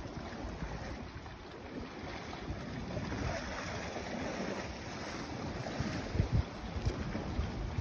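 Wind buffeting the microphone in uneven gusts, over the steady wash of sea waves.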